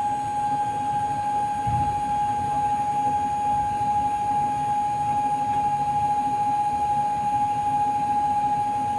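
Fire-training simulator running: a steady rumbling noise from its gas-fed flames and equipment, with one continuous high tone over it.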